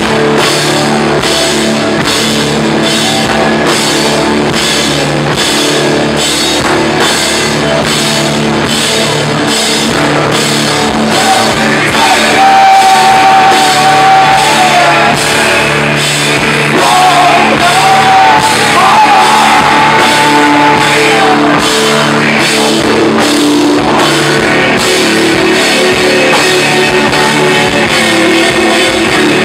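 A live rock band playing loud: electric guitars, bass guitar and a drum kit with steady cymbal strokes. A high melody line holds and bends in pitch around the middle.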